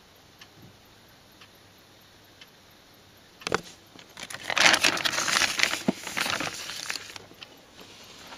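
Glossy gift bag being handled: a couple of knocks about three and a half seconds in, then about three seconds of loud crinkly rustling that fades out.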